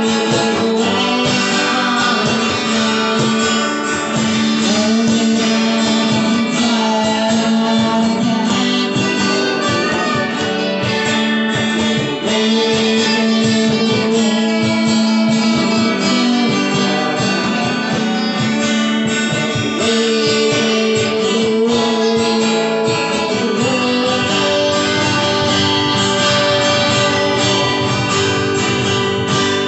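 Two acoustic guitars strummed together in a steady rhythm, played live.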